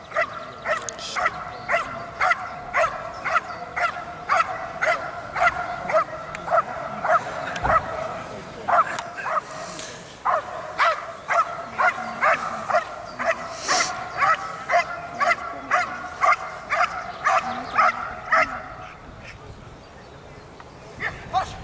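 Belgian Malinois barking in short, high-pitched yelps, about two a second in a steady run that stops a couple of seconds before the end.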